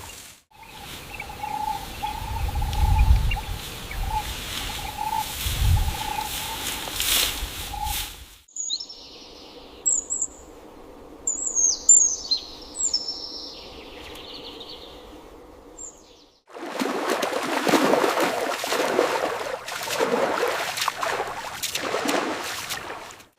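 Loud rustling noise with a steady faint whine and low thumps, then a quiet stretch in the middle with a few high chirps that slide quickly downward, typical of a small bird, then loud rustling noise again.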